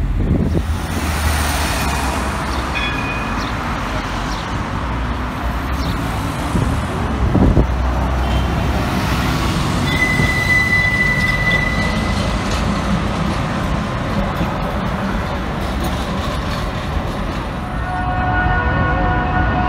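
Istanbul T1 line trams running along a city street: a continuous rail rumble mixed with street noise. About ten seconds in, a steady high-pitched tone lasts about two seconds, and near the end a set of steady tones sets in.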